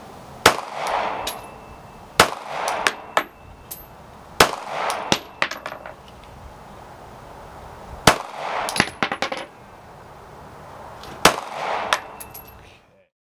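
Glock 42 .380 pistol fired five single shots at slow, uneven intervals, each a sharp crack followed by a short echo, with lighter metallic clinks and rings in between.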